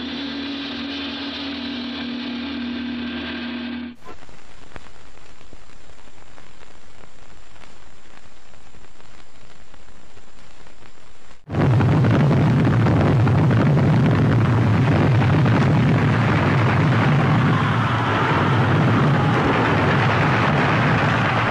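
Logo music holds a sustained chord and cuts off about 4 s in, followed by a quieter stretch of steady hiss. About 11 s in, a loud, steady roar with a deep rumble, an explosion-like sound effect, starts abruptly and runs on.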